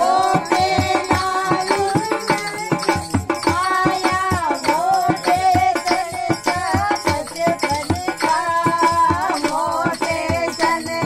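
Women singing a Hindi devotional folk song (bhajan) together, with a dholak drum beaten in a quick, steady rhythm and hand-clapping keeping time.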